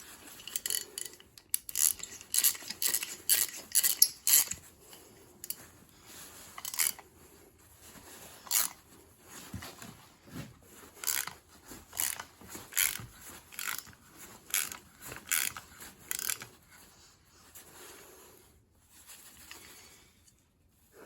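A 3/8-inch ratchet clicking in short, irregular runs as it turns a Helicoil thread-repair tap, cutting dry without lubricant, through a spark plug hole in a cylinder head.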